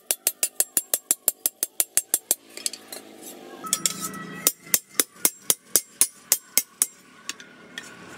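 Hand hammer striking a steel dao blade on a post anvil, sharp ringing clinks about five a second. The blows stop for about two seconds, then resume a little slower and thin out near the end.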